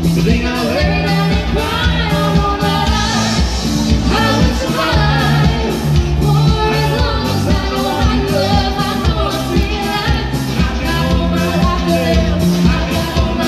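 A woman singing a song into a microphone over live-amplified band music with a steady beat.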